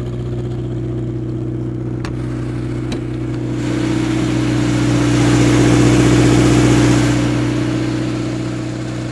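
21 kW diesel generator running steadily at constant speed inside its enclosed cargo trailer. It is louder for a few seconds near the middle, through the trailer's open side door. Two light clicks come about two and three seconds in.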